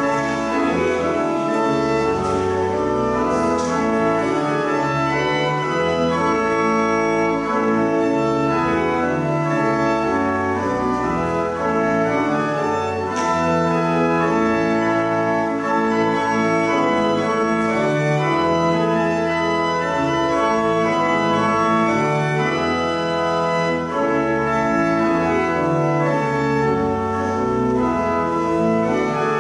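Church organ playing the opening hymn in full sustained chords that change every second or so.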